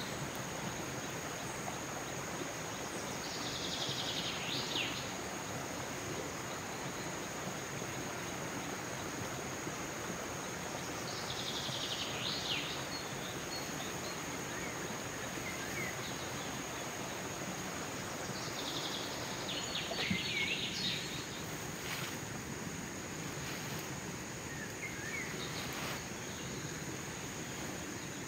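Outdoor ambience with a steady rushing background of running stream water and a constant high insect drone. A buzzing insect call comes back about every eight seconds, and a few short bird chirps sound.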